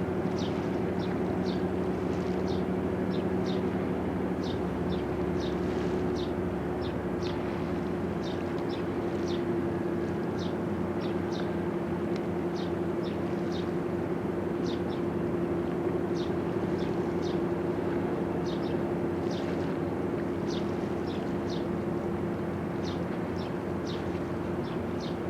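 Steady mechanical hum made of two low tones, with a quick string of short, high chirps about two a second over it.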